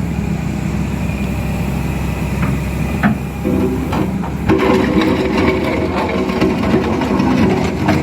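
Excavator's diesel engine running, rising in load about halfway through, with a knock about three seconds in and clattering and scraping from the bucket working.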